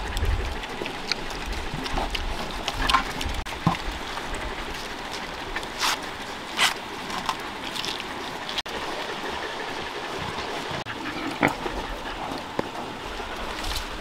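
Green husks being torn off ears of baby corn, giving a few sharp crackling snaps, while a pig grunts and eats close by.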